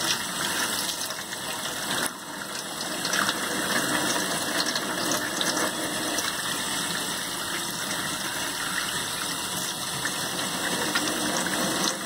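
Tap water running through a dishwasher spray arm and streaming out of its jet holes, splashing steadily into a stainless steel sink as the jets are flushed and checked for blockages.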